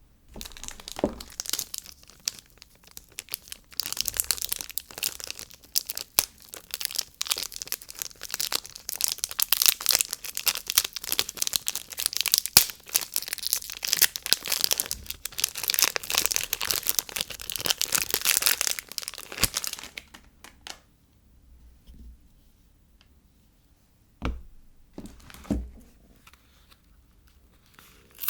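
Soap packaging being crinkled and torn open by hand: a dense, crackling rustle that stops about two-thirds of the way through. Then two soft thuds near the end.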